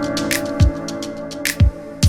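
Background music with a steady electronic beat: kick drums about every half second over held synth chords.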